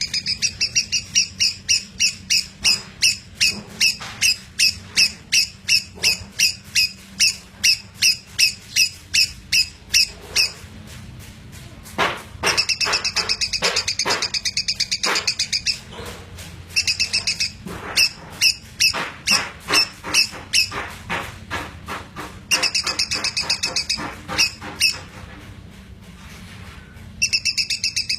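Lovebird chattering in long runs of rapid, shrill chirps, about three a second, broken by a few short pauses, with one denser unbroken stretch about halfway in. This is the long continuous chatter ('konslet') that keepers prize in a lovebird's song.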